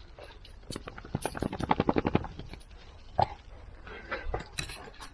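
A dog sniffing hard at dry leaf litter: a quick run of short snuffles, about ten a second, for a second or so. A single knock follows a little after three seconds.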